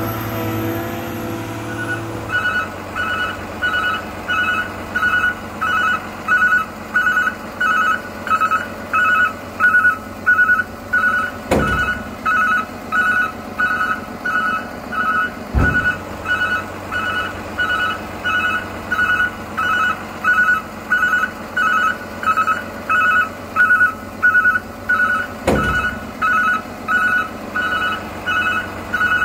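Electronic warning beeper sounding steadily at about two beeps a second, with three sharp clicks along the way.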